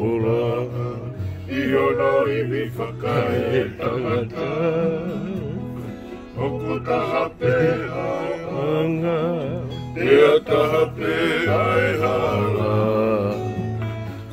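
Men singing a slow song together, voices holding and wavering on long notes, over low bass notes that hold steady and change in steps.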